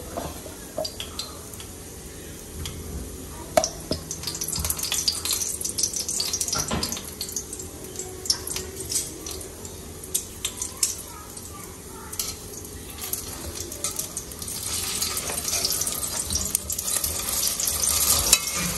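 Tteok rice cakes frying in a pan, a spatula clicking and scraping against it. The sizzle grows louder about three-quarters of the way through, as the rice cakes are stirred.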